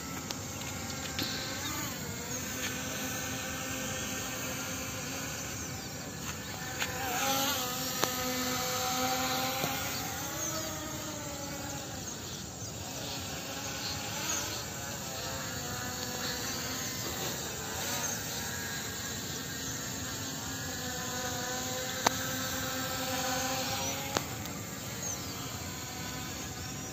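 P18 Pro quadcopter's brushless motors and propellers buzzing in flight, the pitch rising and falling as it manoeuvres. A few sharp clicks stand out, the loudest about three-quarters of the way through.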